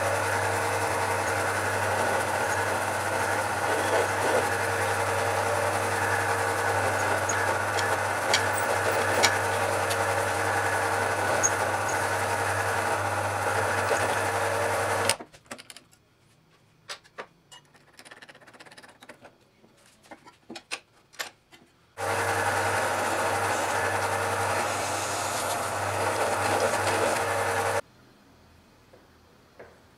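Drill press motor running steadily while the bit drills into a rosewood handle scale through the holes of a steel knife tang. It stops about halfway through, a few light clicks and knocks follow, then it runs again and cuts off suddenly near the end.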